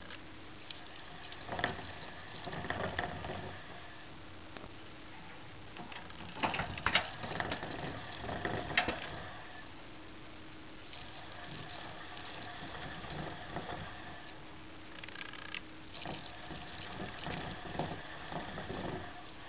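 Purple plastic hamster wheel rattling and clicking as a dwarf hamster runs in it. It comes in four bursts, with quieter pauses between them where the hamster stops.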